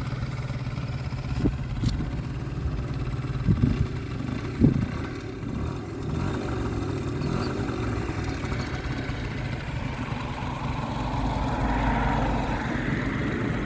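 Hyosung Sense scooter's 50cc two-stroke engine running at idle, a little louder over the last few seconds, with a few short knocks in the first five seconds. The freshly swapped-in engine is sounding good.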